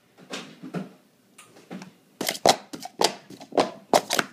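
Plastic sport-stacking cups being stacked and unstacked by hand on a stacking mat: a run of quick clacks, a few soft ones at first, then about three sharp ones a second from about two seconds in.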